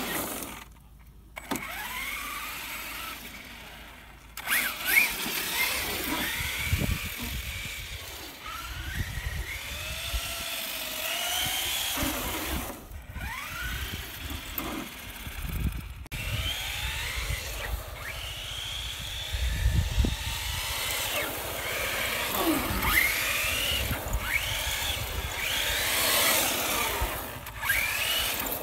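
Electric motor and drivetrain of a Traxxas Slash 4x4 RC car whining, rising and falling in pitch again and again as it accelerates and slows on tarmac, with a low rumble underneath.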